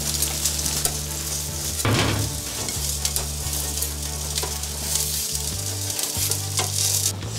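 Trout sizzling on a hot ribbed electric grill, with a few sharp clicks of metal tongs.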